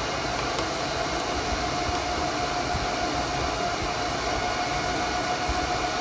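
Original cooling fans of a Brocade ICX-6450 network switch running at full speed: a loud, steady rushing hum with a constant high whine over it. The noise is the sign of the worn, noisy stock fans that are due for replacement.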